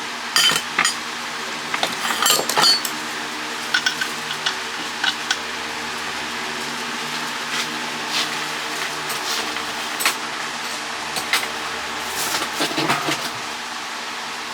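Metal scrap parts from a dismantled water pump motor clinking and clattering as they are handled and set down, in scattered groups of sharp knocks, over a steady background hum.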